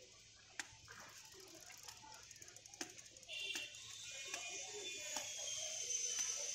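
Curved chopping knife striking into the husk of a toddy palm fruit: a few sharp cuts, a second or more apart. A steady high-pitched drone comes in about three seconds in.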